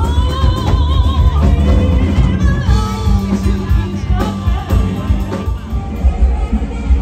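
Live band music: a woman singing into a microphone over keyboard and drums, with long wavering sung notes in the first couple of seconds.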